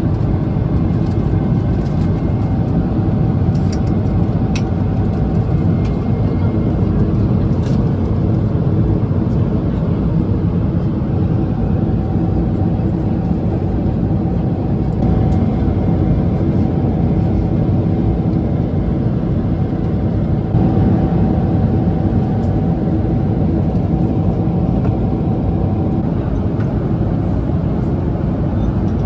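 Steady cabin noise of a Boeing 777-300ER airliner in cruise: a low, even rush of airflow and engine noise, with a faint thin hum tone that comes and goes.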